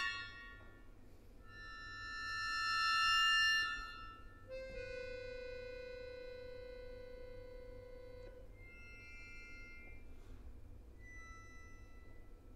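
Solo accordion holding sustained high chords in a contemporary piece: a chord swells loud and cuts off about three and a half seconds in, then a long, quieter chord with a low note sounds for about four seconds, followed by soft held tones near the end.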